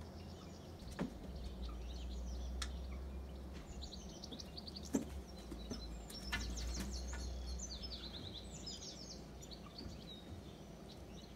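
Small birds chirping and twittering in high notes, with quick runs of notes in the middle, over a low steady background rumble and a few light clicks.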